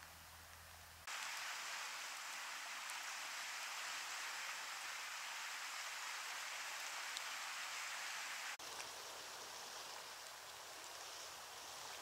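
Steady hiss of rain falling. It jumps louder abruptly about a second in and drops back to a softer hiss at about eight and a half seconds, with a faint low hum under it in the first second and after the drop.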